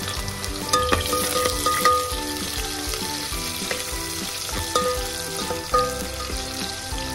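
Sliced onions sizzling in hot oil in a steel pot as they are stirred with a perforated metal spoon. The spoon clinks sharply against the pot a few times.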